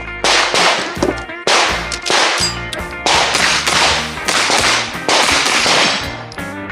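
A string of pistol-caliber carbine shots fired at an uneven rhythm, roughly one every half second to a second, each sharp crack trailing off in echo, with brief metallic ringing after some of them.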